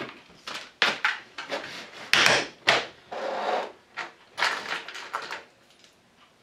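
A clear plastic parts organizer box being handled and rummaged through: a string of irregular plastic clatters and rattles of small parts, dying away near the end.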